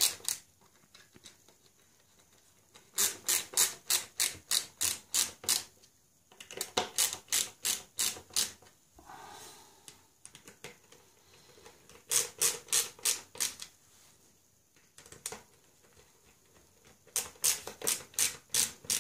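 Ratchet screwdriver clicking in quick runs of about four clicks a second, four runs with short pauses between, as wood screws are driven into pre-drilled holes in a wooden loom frame.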